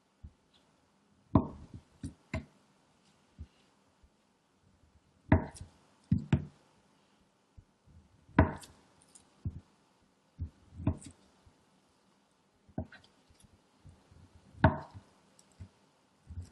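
A chef's knife slicing through a block of Spam and knocking down onto a bamboo cutting board: sharp wooden knocks at uneven intervals of one to two seconds, some in quick pairs.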